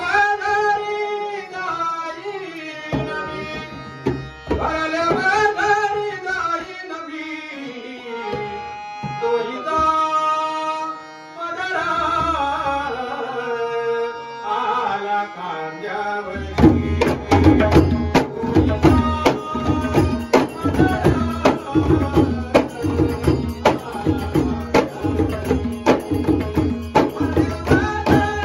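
Traditional Konkan Shimga ghumat music: a man sings in a strong, full voice for about the first sixteen seconds. Then ghumat clay-pot drums and a dholki come in with loud, fast drumming that carries on to the end.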